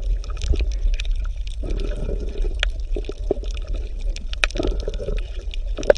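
Underwater ambience: a steady low rumble with bubbling and many scattered crackling clicks.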